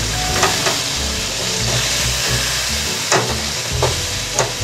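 Potato cubes sizzling in hot spiced oil and tomato masala in a non-stick wok while a spatula stirs them, scraping the pan several times.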